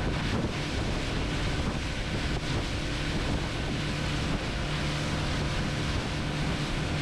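Outboard motor running steadily at speed as the boat planes across choppy water, with a steady low engine hum under heavy wind noise on the microphone and the rush of water.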